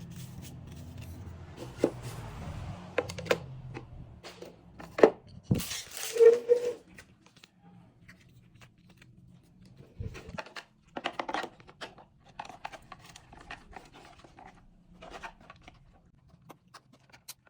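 Packaging being opened and handled: scattered rustling, tearing and sharp clicks of plastic parts, loudest about five to seven seconds in. A low hum runs underneath for the first four seconds, then stops.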